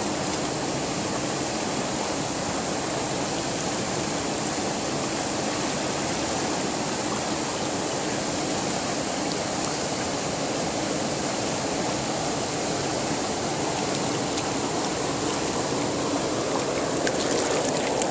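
Steady rush of river water pouring over a weir and churning through the rocky rapids below it.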